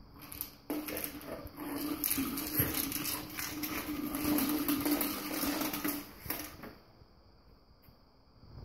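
Hard plastic treat-dispensing puzzle ball rolling across a hardwood floor as a dog noses it along, a steady rolling rumble with treats rattling inside. It starts about a second in and stops after about six seconds.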